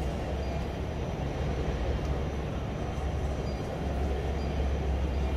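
Steady low rumble with a faint hiss: airport apron ambience around a parked airliner.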